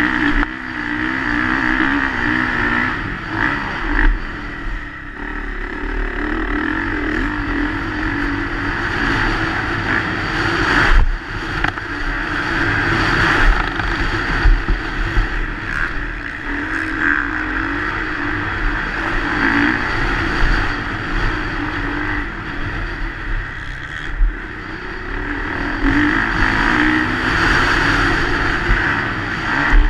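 Motocross bike engine heard from the rider's onboard camera, revving up and falling off again and again as it is ridden round a dirt track. A few sharp knocks along the way.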